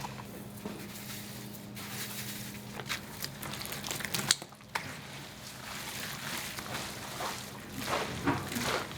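Commercial kitchen food-preparation noises: wet handling of food with scattered sharp clicks and knocks, the loudest about four seconds in, over a steady low machine hum.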